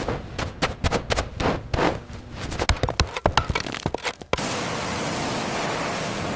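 Rapid, irregular knocks, clatters and scrapes for about four seconds, then a steady loud hiss takes over abruptly.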